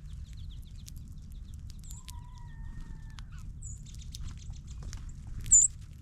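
Songbirds giving short, sharp, high chip calls, three of them, the last the loudest near the end, after a quick run of softer high notes in the first second. Light ticks and clicks throughout, with a steady low rumble underneath.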